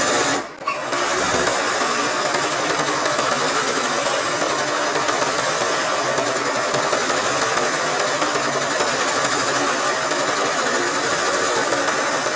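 Electric sewing machine running steadily at speed, its needle stitching free-hand embroidery through fabric stretched in a hoop. The sound dips briefly about half a second in, then carries on evenly.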